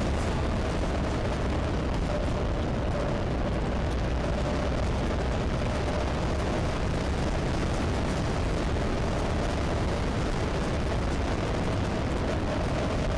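Steady wind rush and road noise on the microphone of a camera riding on a moving vehicle, heavy in the low end, with a faint steady engine note underneath.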